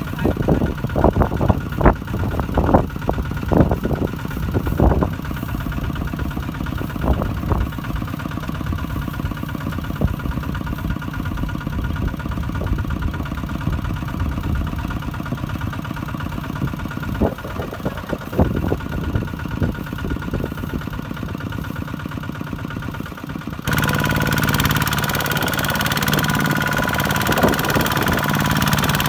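Kubota ZT155 walk-behind tractor's single-cylinder diesel engine running steadily while it hauls a loaded trailer through a muddy paddy, with sharp knocks in the first few seconds and again later on. A few seconds before the end its note jumps suddenly louder and brighter.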